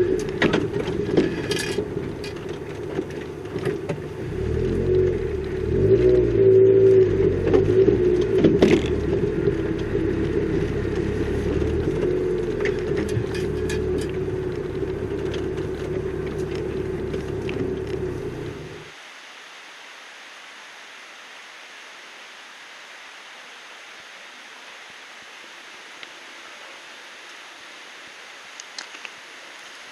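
Car engine running, with a few clicks, then stopping abruptly about two-thirds of the way in. A steady rushing hiss remains.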